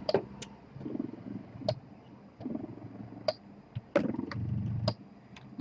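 Spectra S1 electric breast pump running at suction level 12, its highest, in expression mode: a low vibrating hum that swells in regular pulses about once a second with each suction cycle, with light clicks in between.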